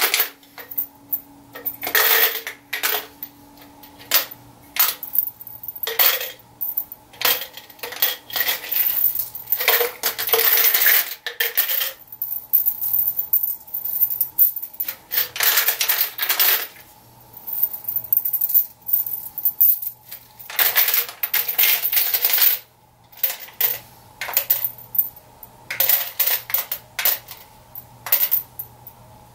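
Bullets clinking against each other as they are dropped by the handful into a coating tub, in irregular runs of metallic jingling with short pauses. This is the loading of about a hundred clean, dry bullets into the tub for boron nitride coating.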